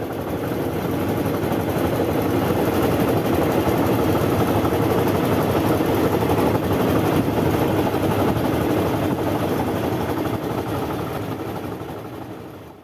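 Outrigger fishing boat's engine running steadily while the boat is under way. The sound fades in over the first second or two and fades out near the end.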